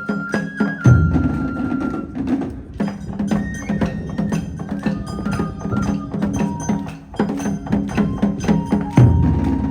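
Taiko ensemble on nagado-daiko drums playing a fast, dense rhythm, with sharp wooden clicks and a high held melody running over the drumming. Two heavy deep drum hits land about a second in and again near the end.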